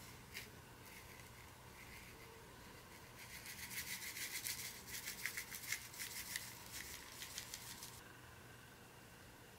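Herb salt shaken from a shaker onto a raw beef steak: a click about a second in, then a few seconds of rapid, scratchy rattling as the grains fall, stopping about two seconds before the end.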